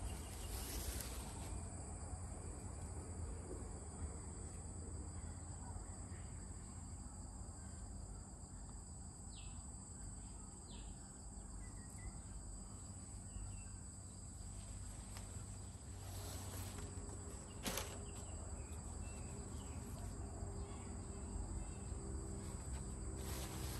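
Outdoor ambience of insects chirping steadily over a low rumble, with one sharp click about three-quarters of the way through.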